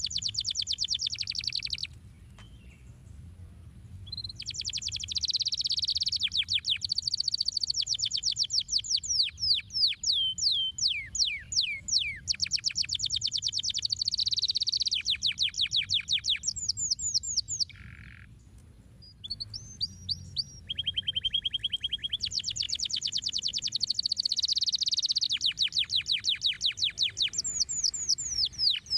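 Domestic canary singing: long phrases of rapid repeated notes and trills, each tour a run of quick sweeping notes, breaking off briefly twice.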